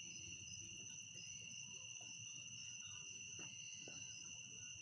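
Faint chorus of crickets at night, a steady high-pitched trill with no break, over a low rumble.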